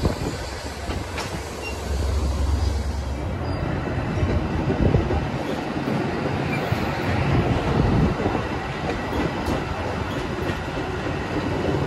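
Metra commuter train of stainless-steel bilevel coaches rolling past, a steady rumble of wheels on rails with a few sharp clicks.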